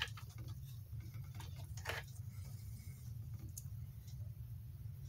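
A few small clicks and a short scrape of plastic connectors being handled as a battery's JST plug is fitted into an adapter, over a steady low hum.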